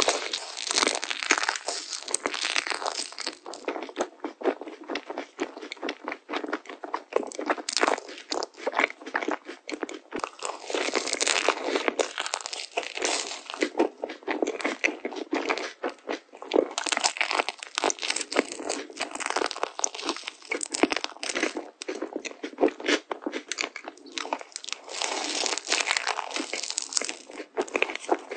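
Close-miked biting and chewing of toasted marshmallows on sticks, their caramelized sugar crust crackling as it breaks: a dense, continuous run of small crunches and crackles.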